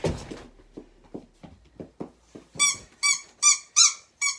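A small dog yipping: a run of short, high yelps, about two or three a second, starting a couple of seconds in. Before them come a thump and a series of light ticks.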